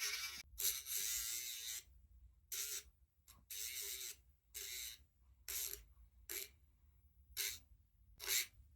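Naigrins cordless dog nail grinder touching up a small dog's nails in short passes: about nine bursts of gritty grinding hiss as each nail meets the spinning drum. The first pass lasts over a second and the later ones are briefer, with quiet gaps between.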